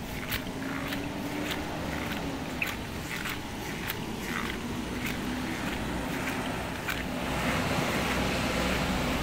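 Footsteps on wet pavement, about two a second, over a steady hiss of rain and traffic with a faint engine hum. About seven seconds in, the hiss grows louder as a vehicle's tyres pass on the wet road.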